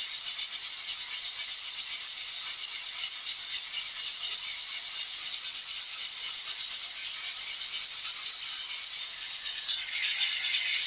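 Stovetop pressure cooker at full pressure, its weighted valve rattling as steam hisses out steadily; it cuts off suddenly at the end.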